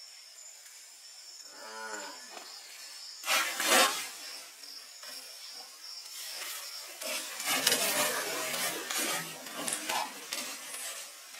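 Steady high chirring of night insects, broken a few seconds in by a loud, drawn-out call. Later comes a stretch of rustling and knocks as goat carcasses are laid down on a plastic tarp.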